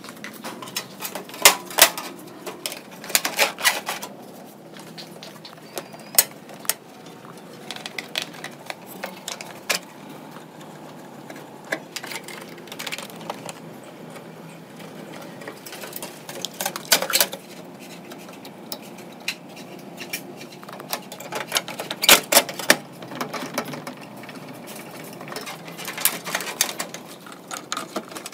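Clicks, taps and light metal clatter from a desktop computer being assembled by hand: a screwdriver working in the steel case and plastic cable connectors pushed into place. They come in short bursts every few seconds over a faint steady hum.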